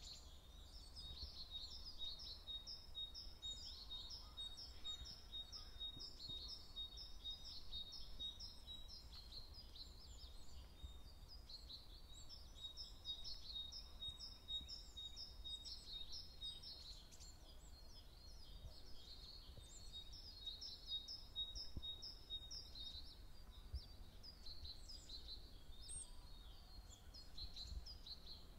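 Faint songbirds singing in woodland, a steady stream of short repeated chirps and trills, with a thin steady high tone under them that stops about three-quarters of the way through. A low rumble of wind on the microphone lies beneath.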